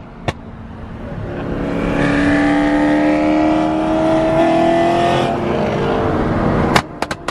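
BMW M3 accelerating hard alongside, its engine and exhaust note climbing steadily in pitch for about four seconds, then easing off. Near the end comes a quick run of sharp clicks.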